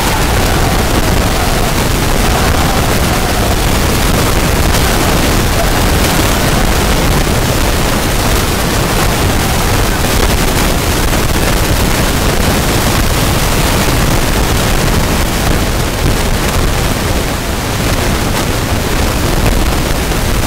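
Rugby players shouting and chanting in a celebration huddle, so close and loud that it comes through as a steady, dense, distorted wall of noise.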